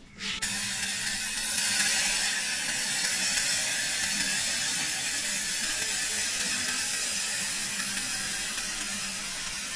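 Hot lime-and-chili sauce poured in a thin stream from a pot onto a plate of steamed fish: a steady trickling hiss that starts abruptly just after the beginning.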